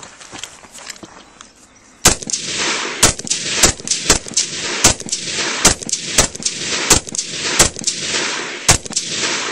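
Rock River Arms AR-15 rifle fired semi-automatic in a steady string of single shots, about one to two a second, starting about two seconds in. Each shot rings out with an echo.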